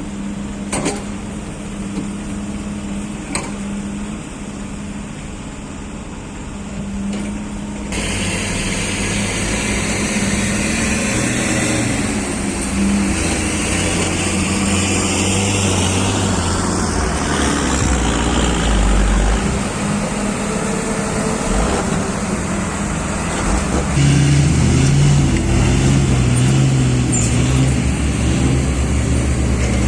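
Diesel engine of heavy excavating machinery running steadily with a low hum, growing louder and fuller about eight seconds in and again near the end as it takes on more load.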